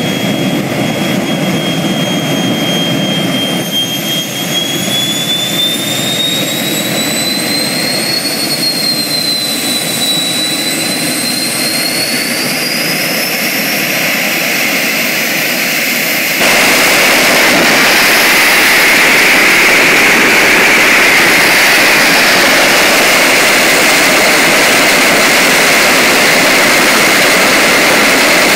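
Turbomeca gas-turbine engine of a jet-powered Daihatsu Mira running, its high whine rising and then falling in pitch over the first half. About halfway through the sound steps up abruptly to a louder, steady jet roar.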